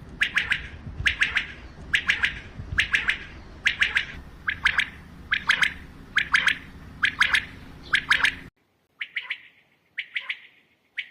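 Male common quail (bedana) singing, its short clipped call of two or three sharp notes repeated over and over, a little faster than once a second. About eight seconds in the background hiss drops away, and the calls go on.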